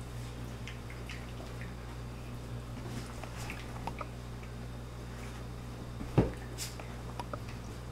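A Bernese mountain dog mouthing and play-wrestling with a small puppy: soft wet mouthing and licking sounds with scattered faint clicks over a steady low hum, and one louder thump about six seconds in.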